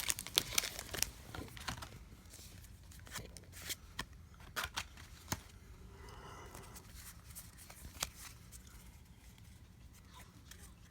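Pokémon booster pack being handled: a short burst of wrapper crinkling in the first second, then quiet handling of the trading cards, with scattered light clicks and rustles as the cards are slid and flipped.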